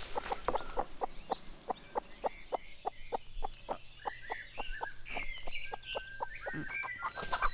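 A hen clucking in a fast, even run of short clucks, about five a second. Small birds chirp in the background.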